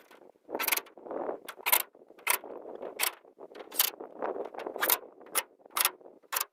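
A run of sharp knocks and clatters, about two a second at uneven spacing, with duller rustling between them: the sound of hands-on building work.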